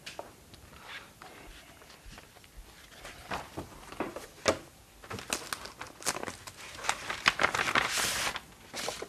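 Paper handling at a wooden desk: a few soft steps and light knocks, then crinkling and rustling as an envelope is handled and sheets are drawn out. The rustling is densest near the end.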